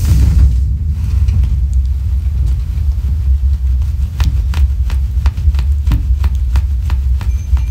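A steady low rumble, with a scattering of light clicks from about four seconds in. Near the very end a First Alert OneLink hardwired smoke alarm's high test tone begins faintly.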